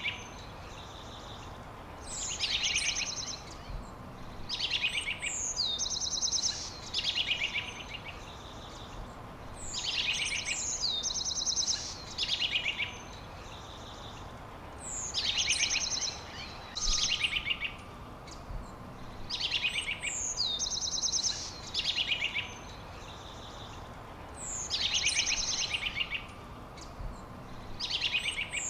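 A songbird sings the same short, high phrase over and over, about every two seconds, often in pairs: a quick sweeping note followed by a fast trill that drops lower at the end. Behind it is a faint, steady background hiss.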